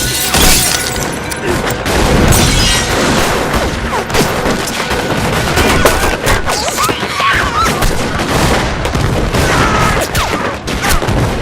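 Film soundtrack of a heavy gunfight: volleys of gunshots and deep booms follow one another without a break, under music.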